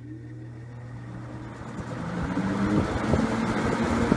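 1950s Roto-Aire 07104 box fan starting up on high: an electric motor hum with tones gliding upward as the blades spin up, then a rush of air that grows louder over the second half, with a light irregular rattle.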